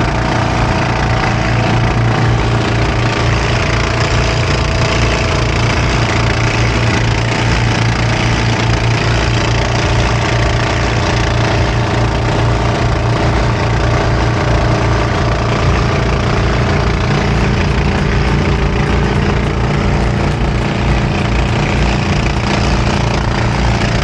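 A loud engine running steadily at constant speed, with a strong low hum.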